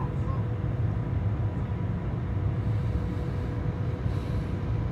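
Steady low rumble of a high-speed train heard from inside the passenger cabin, with a faint steady hum on top.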